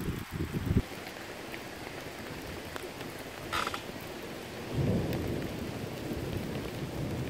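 Rain falling steadily in a storm. Choppy low rumbling in the first second, and a low rumble that swells about five seconds in and stays up.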